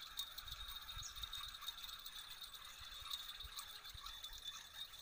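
Spinning fishing reel ticking and clicking faintly as the line is wound in under a bent rod.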